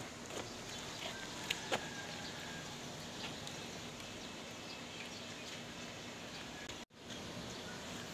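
Steady low background hum inside a car, with a few faint clicks. The sound cuts out abruptly for a moment near the end.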